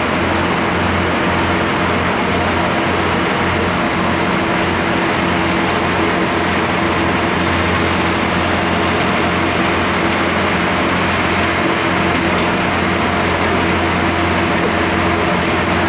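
A motorboat's engine running steadily with a low, even drone, over a steady hiss of rain and water.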